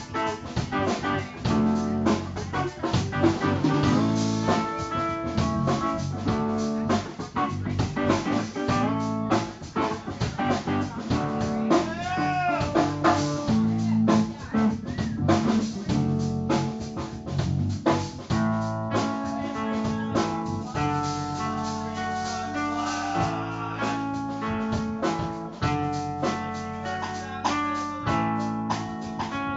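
Live band playing: electric guitar over a drum kit, with steady drum hits throughout.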